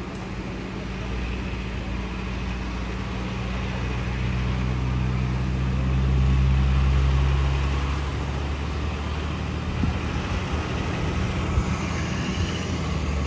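Heavy truck engine idling with a steady low hum, getting louder for a few seconds midway and then easing back.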